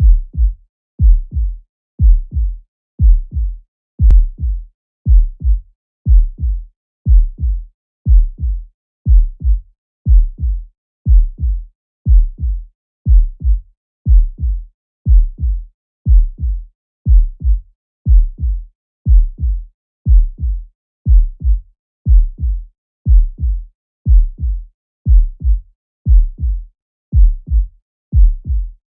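Normal human heart sounds heard as through a stethoscope: a steady lub-dub of the first and second heart sounds (S1 and S2), about one beat a second. In each pair the first, lower thump is louder than the second, and there is no murmur between the beats.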